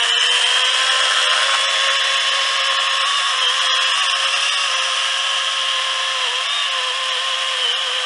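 Battery-powered chainsaw running at full speed and cutting across a log, a steady electric whine. Its pitch sags briefly a few times in the second half as the chain works into the wood.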